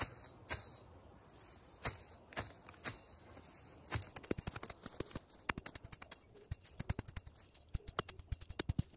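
Machete hacking at weeds and soil: sharp chopping strokes, a few spaced ones at first, then a quick run of repeated strokes from about four seconds in.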